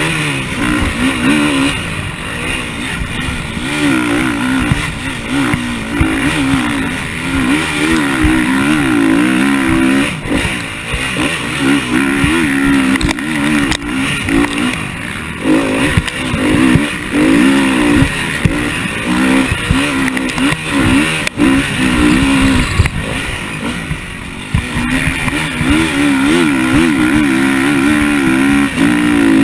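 KTM motocross bike engine, heard close from the bike, revving hard up and down as the rider accelerates and backs off the throttle. The throttle is briefly cut several times.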